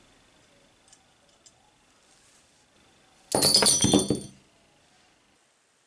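Small iron finger plates and chainmail rings clattering onto a table as a half-made armoured glove is pulled off: a brief burst of metallic clinks a little over three seconds in, after a couple of faint clicks.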